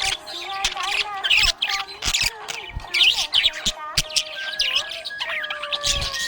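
Budgerigars chirping and squawking in quick, overlapping calls, with some longer held notes among them.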